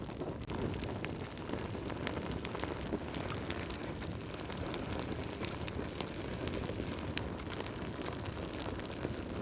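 Wood fire burning in a fireplace, with dense irregular crackles and pops over a steady low rush of flame.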